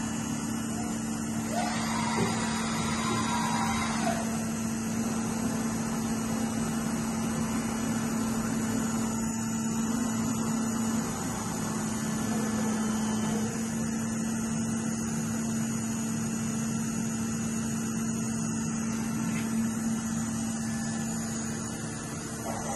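Soraluce Soramill SL bed-type milling machine running under power, with a steady electric hum. About two seconds in there is a brief louder rising whine.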